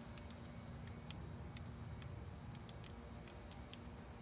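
Faint, irregular ticking and crackling as foaming coil cleaner works on a Polaris RZR radiator and loosened mud drips out of it, over a low steady rumble.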